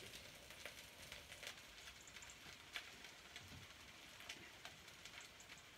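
Faint crackling of a wood fire burning under the grill: scattered small pops over a soft hiss, with a light sizzle from the hot pan of chicken above it.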